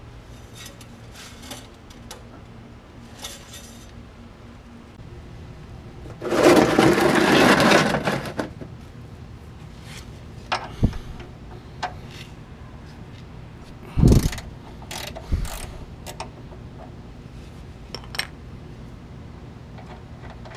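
Wrench working the oil-pan drain plug under a Ford truck: scattered metallic clicks and knocks, the loudest about fourteen seconds in, after a rustling burst of about two seconds some six seconds in.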